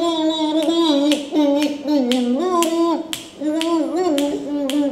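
A woman humming a wavering tune through closed lips with her cheeks puffed out, shown off as a vocal trick, with sharp clicks about three times a second running through it.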